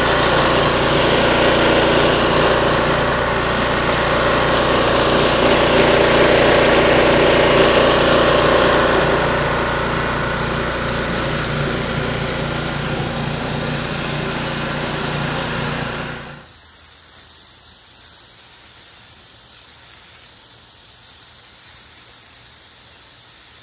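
Gas pressure washer's small engine running steadily under the hiss of water jetting from the spinning nozzles of a 16.5-inch surface cleaner onto concrete. About 16 seconds in, the engine sound cuts off suddenly, leaving a quieter steady hiss.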